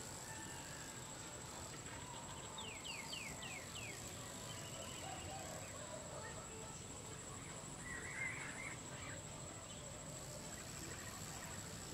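Open-field ambience: a steady, high-pitched insect drone, with bird calls over it, a quick run of about five falling whistled notes about three seconds in and a brief chirpy burst about eight seconds in.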